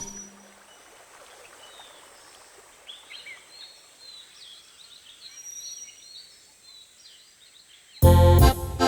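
Faint nature ambience bed: a soft steady hiss with scattered small bird chirps. About eight seconds in, loud music breaks in suddenly.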